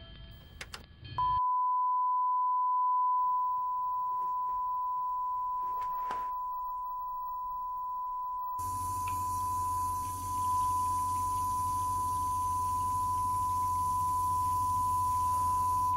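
Steady, high-pitched sine-wave test tone from a TV station's colour-bar 'please stand by' test card, the signal of a broadcast off the air with technical difficulties. It starts about a second in after a few short electronic beeps, and about halfway through a low hum and hiss join beneath it.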